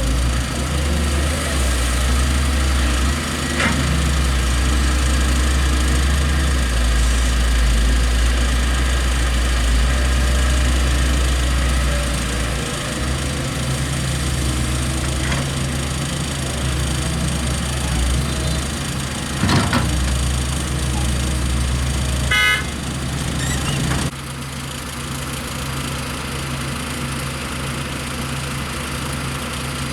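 Heavy diesel engines of an excavator and dump truck running, louder for the first dozen seconds and dropping off sharply about 24 seconds in. A knock about 19 seconds in, and a brief horn toot a few seconds later.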